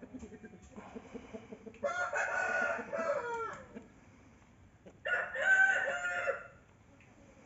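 A rooster crows twice, each crow about a second and a half long. There is low, soft clucking in the first couple of seconds.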